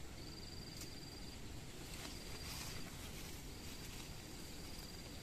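An insect trilling at a steady high pitch in bouts about a second long, three times, over a faint even background hiss.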